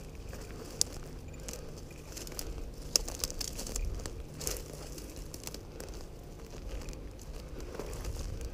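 Footsteps crunching and rustling through dry brush and gravel, irregular, with a couple of sharp clicks about one and three seconds in.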